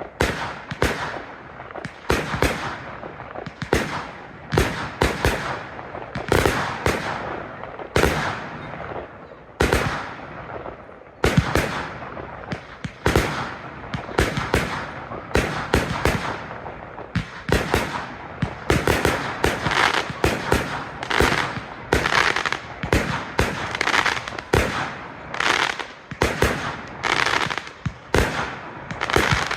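Aerial fireworks exploding in rapid, continuous succession, several sharp bangs a second, with crackling between the bursts; the firing grows denser in the second half.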